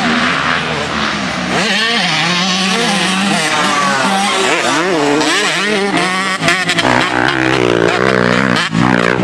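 Several motocross dirt bikes revving hard as they ride over a jump and away down the track, their engine notes rising and falling and overlapping.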